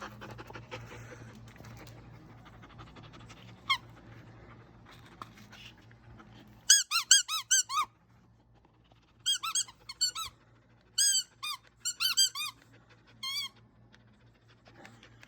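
A squeaky toy ball being chomped by a young German Shepherd: a single squeak, then runs of quick, high squeaks several a second, in bursts with pauses between.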